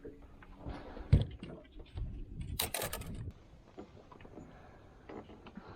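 Irregular clicks and knocks of handling, with a sharp thump about a second in and a brief loud hiss about halfway through.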